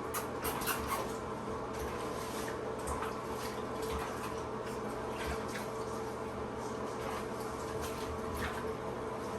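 Bathwater sloshing with small, scattered splashes and drips as puppies are washed in a bathtub, over a steady low hum.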